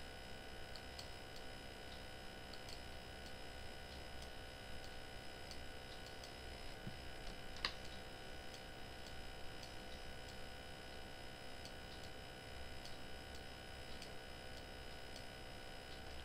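Faint computer mouse clicks, scattered about one every second or less, with one sharper click about eight seconds in, over a steady electrical hum.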